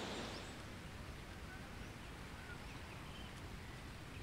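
Faint outdoor ambience: a steady low rumble and hiss with a few short, faint bird chirps scattered through it.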